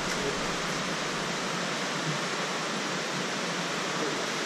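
Steady, even rush of water from a mountain torrent pouring through a narrow rock gorge.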